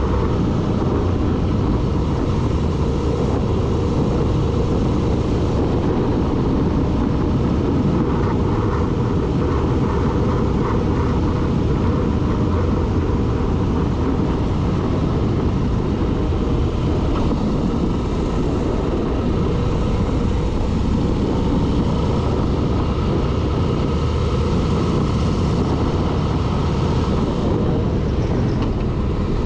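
Steady rumble of a vehicle under way, engine, road and wind noise mixed, as picked up by a GoPro riding along with it.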